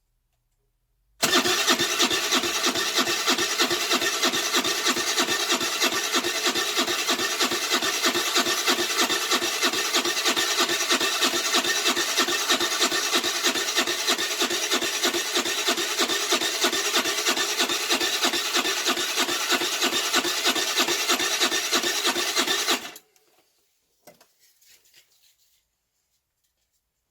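Electric starter of a Baotian Tanco 4-stroke 50cc scooter cranking the engine in one long, even, pulsing run of about 21 seconds that stops suddenly, without the engine catching. The owner says the engine is flooding: the spark plug keeps coming out wet, which he puts down to a fouled carburettor.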